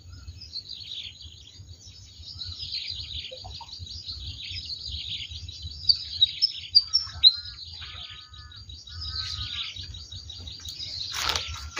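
Small birds chirping and calling continuously in quick, short, falling notes, with a few loud sharp notes about six to seven seconds in. A steady high-pitched tone runs underneath, and there is a brief noise near the end.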